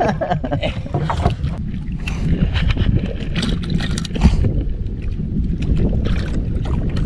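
Wind buffeting the microphone over water sounds on a small wooden outrigger boat, with scattered short clicks and knocks as a fishing handline and gear are handled.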